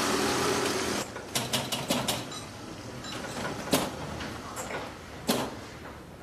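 A moped engine runs for about the first second and cuts off abruptly. Then come the sharp clicks and knocks of a pinball machine in play: a quick cluster of clicks, then single knocks every second or so.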